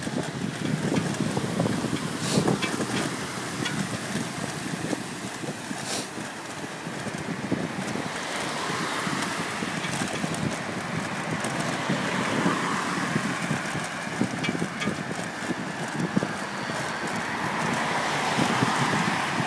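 Wind buffeting the microphone while riding a bicycle along a wet bike path, with road traffic passing beside it. A few light clicks come early, and the noise swells twice, about twelve seconds in and near the end.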